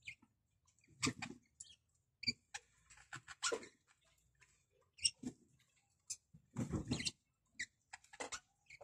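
Budgerigars chirping in short, scattered calls with pauses between them.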